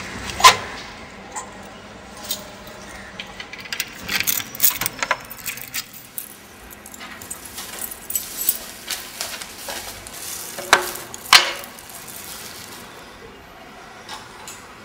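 Keys jangling and a series of sharp metal clicks and clacks as the barred grille gate of a flat is unlocked and opened. The loudest clack comes about half a second in, a flurry of small clinks follows a few seconds later, and two more loud clacks come near the end.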